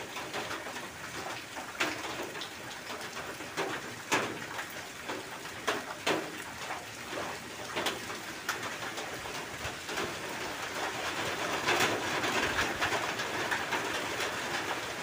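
Irregular light clicks and taps as a thin rod is poked into a handheld motorcycle brake master cylinder to push its piston, over a steady background hiss.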